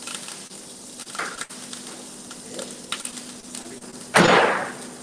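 Fish frying in a pan on a gas burner with a faint steady sizzle and a few small clicks. About four seconds in, a sudden loud rush of noise fades away over nearly a second.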